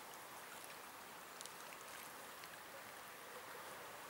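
Faint, steady rushing of a river's flowing water.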